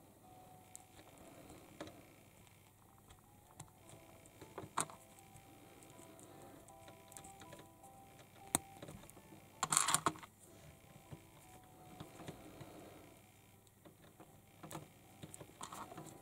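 Small plastic toy figure parts being handled and clicked together: scattered light clicks and taps, with a brief louder crackle about ten seconds in.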